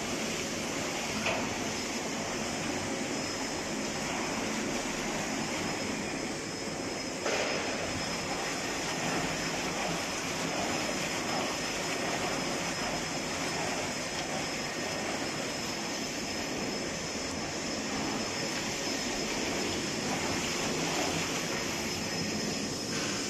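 Homogenizer mixer tank running, its motor-driven paddle agitator churning liquid in a stainless steel tank with a steady mechanical noise. About seven seconds in a knock and a rise in level, and a high steady whine joins.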